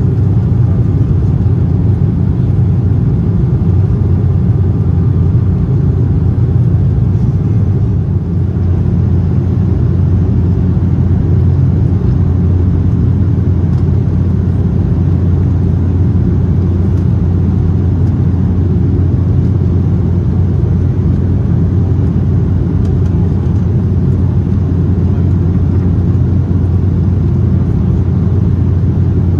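Steady cabin roar of an Embraer E190 in the climb after takeoff, its GE CF34 turbofans and the airflow giving an even, heavy low rumble with a steady low hum.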